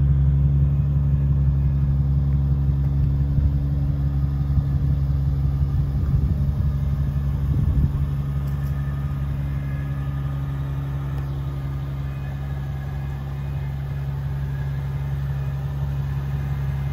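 A 2004 BMW 760Li's 6.0-litre V12 idling steadily through its custom exhaust, a low, even hum that grows a little fainter about halfway through.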